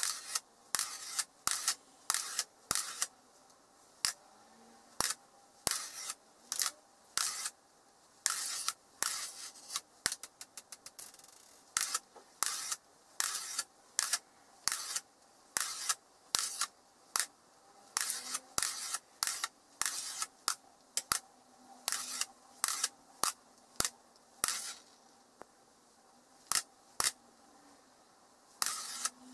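Small magnetic balls clicking as they snap onto one another and onto the tabletop, in irregular single clicks and short clusters, with a quick rattling run of clicks about ten seconds in.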